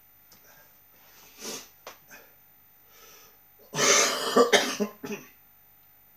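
A man coughing into his fist: a fit of several harsh coughs close together, starting a little under four seconds in and lasting about a second and a half. The coughing comes from a chest infection.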